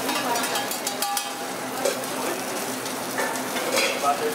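Steady sizzle of food frying, with a metal spoon scraping and clinking against a stainless steel frying pan as sauce is spooned from it. A few sharp clinks stand out in the first second and again later.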